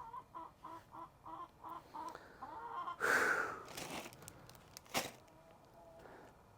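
Chickens clucking in a quick run of short, repeated notes for about two seconds, followed by a brief noisy burst about three seconds in and a single sharp click near five seconds.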